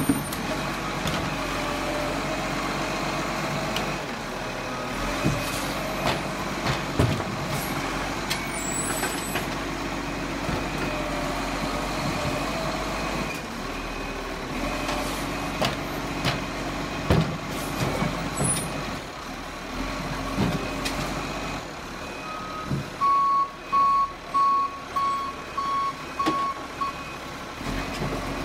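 Rubbish truck's engine running steadily, with scattered clunks and knocks. Near the end, a warning beeper sounds about seven short beeps, roughly two a second.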